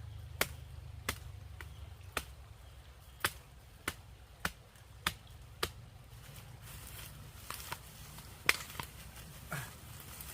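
A hand tool chopping into the ground or plants with sharp, separate strikes, about one every half second to a second over the first six seconds, then a few more irregular strikes near the end.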